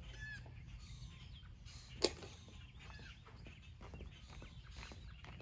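Faint birds chirping in short calls, over a low steady outdoor rumble, with one sharp click about two seconds in.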